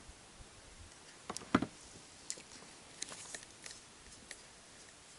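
A few scattered light clicks and knocks over a quiet background. The loudest is a dull knock about a second and a half in.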